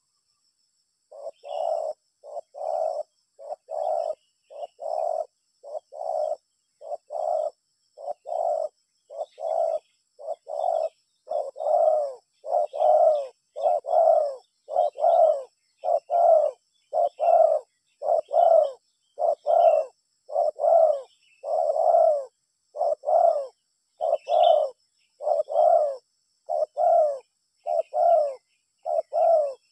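Spotted dove (tekukur) cooing: a long, regular series of short low coos, about one a second, starting about a second in and getting louder after about ten seconds.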